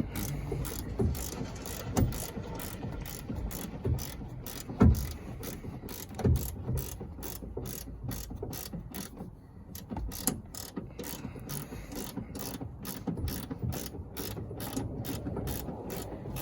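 Ratchet wrench clicking in a steady run as a harness bar mounting bolt is worked loose, with a few louder knocks in the first half.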